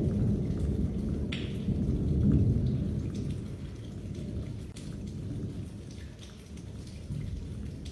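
Rain falling during a thunderstorm: a low rolling rumble of thunder, loudest in the first few seconds and then dying away, over scattered raindrop ticks.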